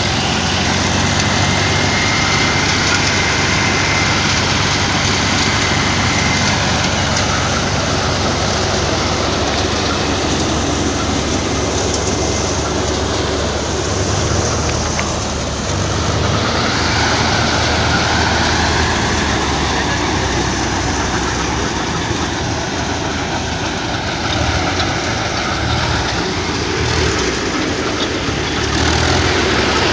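Mahindra 265 DI tractor's three-cylinder diesel engine running steadily under load, driving a threshing machine, with the thresher's drum whirring and rattling as crop is fed through.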